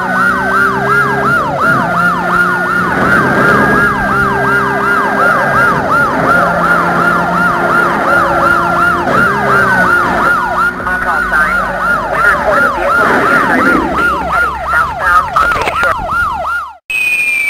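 Police siren sound effect in its fast yelp, rising and falling about three times a second, over a low steady hum whose pitch shifts every second or two. It cuts off abruptly near the end, and a single high falling tone follows.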